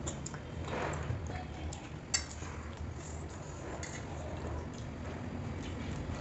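Quiet eating sounds at a meal: a few light clicks and clinks of food and fingers or a spoon against a plate, one sharper click about two seconds in, over a steady low hum.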